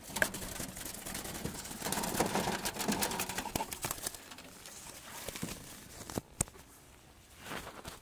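Rustling, scraping and light knocking as a wooden bird trap with rusty expanded-metal mesh is handled, busiest over the first four seconds, with one sharp click about six and a half seconds in.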